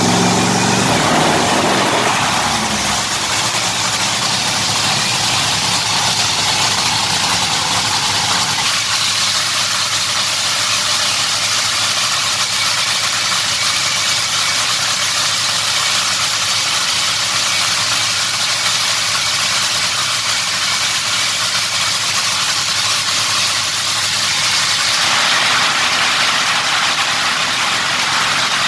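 Supercharged nitromethane Hemi V8 of a Top Fuel dragster running at idle during a pit warm-up. It is loud and steady, and its sound shifts a couple of times, at about 2 and 9 seconds in.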